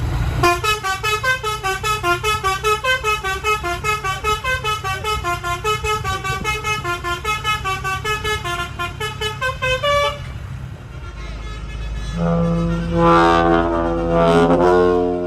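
Multi-trumpet 'telolet' air horns: for about ten seconds a rapid staccato tune of short horn notes, four or five a second, over a low engine rumble; then, from about twelve seconds in, long held chord-like blasts from a set of trumpet horns that swell twice.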